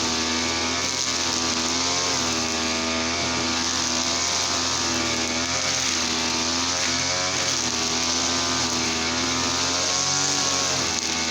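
TL33 two-stroke brush cutter engine running at working speed, its pitch rising and dipping every couple of seconds as the throttle and cutting load change.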